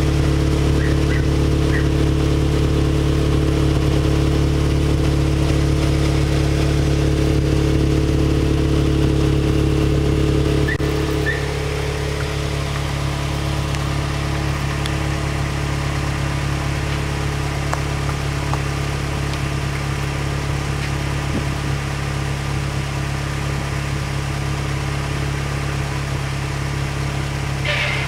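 Mazda MX-5's four-cylinder engine idling steadily through a Goodwin Racing Street Single aftermarket exhaust. About eleven seconds in, the idle settles lower and the note gets a little quieter.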